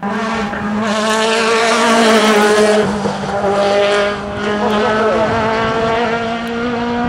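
Sports-prototype race car's engine at high revs as it climbs through a bend. The pitch holds nearly steady, with brief dips in loudness about three and four seconds in.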